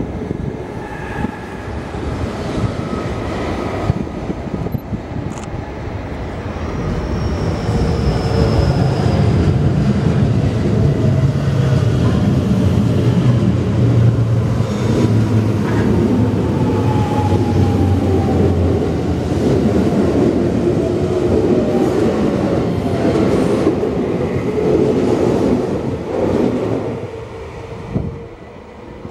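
JR West suburban electric train approaching and running past close by, with a heavy rumble of wheels on rail and a faint whine that slides down in pitch as it goes by. The noise dies down shortly before the end.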